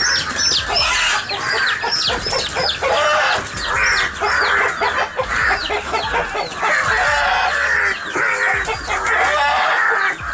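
Hen clucking and squawking in an agitated fight with a crow over her chicks, amid many short, high, falling peeps repeated throughout.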